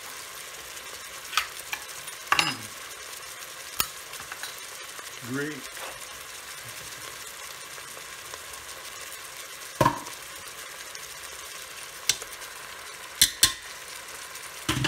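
Meatballs sizzling steadily in a rice cooker's inner pot on sauté mode. Over it come several sharp metallic clicks and clanks as a pop-top tin of mushrooms is opened and emptied into the pot, including two close together near the end.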